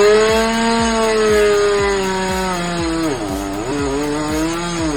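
Chainsaw at full throttle. Its pitch rises to a high scream, sags briefly about three seconds in as it bogs under load, then recovers and drops off near the end as the throttle is released.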